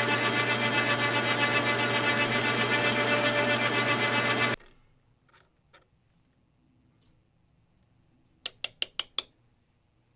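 Belt-driven metal lathe running slowly in back gear while a drill bit bores through a part held in its three-jaw chuck: a steady mechanical hum and whir that stops abruptly about four and a half seconds in. Near the end, five quick metallic clicks as the chuck is loosened with the chuck key.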